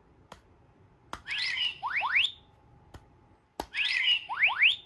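Electronic sound effects of a replica Quantum Leap 'Gummi Bear' handlink prop as its buttons are pressed: a click, then a short burst of warbling chirps ending in two quick rising whistles, heard twice.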